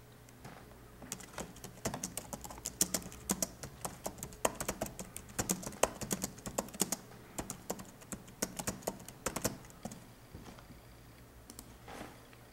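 Typing on a computer keyboard: quick, uneven keystrokes starting about a second in and stopping about ten seconds in, then a click or two near the end.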